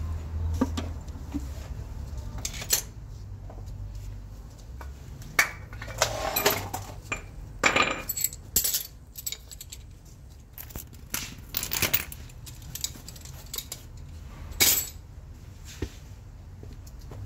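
Metal hand tools clinking and clattering in a string of irregular sharp clanks, over a low hum that fades out about five seconds in.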